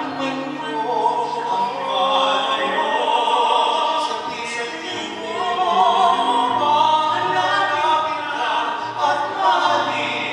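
Two male tenors singing a duet into microphones in an operatic pop style, with long held notes over a sustained low accompaniment.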